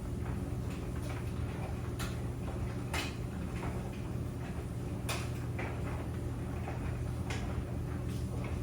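Tumble dryer running with a steady low hum, with irregular knocks and clicks from the tumbling load.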